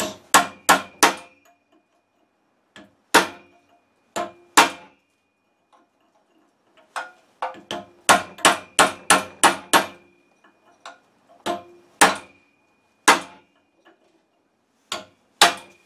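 Hammer striking metal to bend the lock plate's tab against the flywheel nut so the nut cannot work loose. Sharp metallic strikes, each with a short ring, come in irregular groups, with a fast run of about ten taps around the middle.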